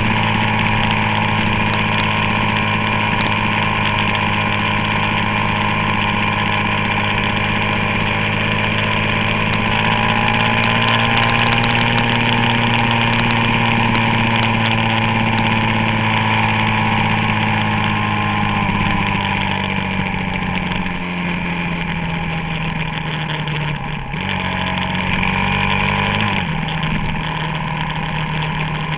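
Suzuki DR-Z400SM's single-cylinder four-stroke engine running steadily, its pitch rising slightly and then easing down about two-thirds of the way through, with a short break and a shift in pitch near the end.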